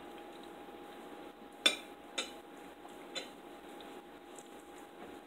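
Forks and knives clinking against dinner plates. There are three sharp clinks within about a second and a half, and the first is the loudest.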